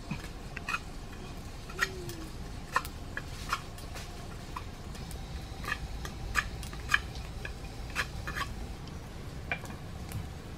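Wood fire crackling under a coconut-shell pot: irregular sharp pops and ticks, about one or two a second, over a low steady rush.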